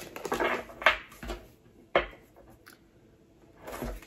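Tarot cards being handled and shuffled on a table: a few short crisp slaps and rustles, the sharpest about two seconds in, then a quiet stretch before another rustle near the end.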